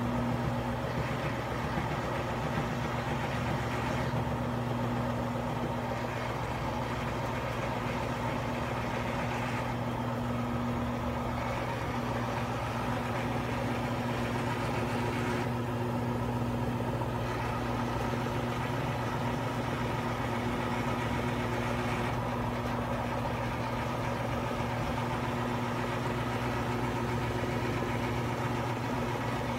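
Front-loading washing machine in its final spin cycle: the drum turning at a steady speed with an even motor hum that holds the same pitch throughout.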